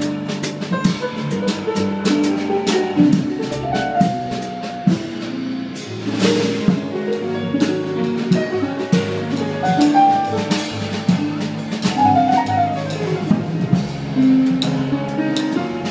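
Live jazz band playing: a drum kit with cymbal strikes throughout, a crash about six seconds in, under a moving melodic line of changing notes.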